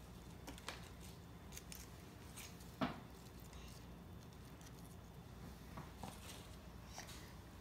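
Faint rustling and light clicks of hands handling and laying lettuce leaves, with one sharper tick about three seconds in.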